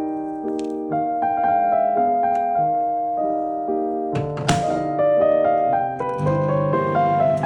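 Background piano music playing a gentle melody, with one sharp click about four and a half seconds in.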